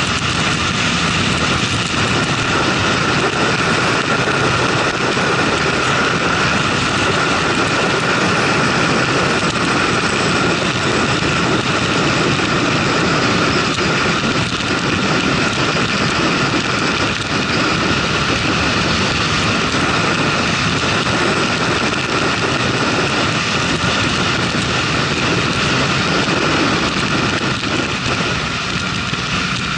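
Motorcycle cruising at about 80–90 km/h, its engine running steadily under a constant rush of wind and road noise on the microphone.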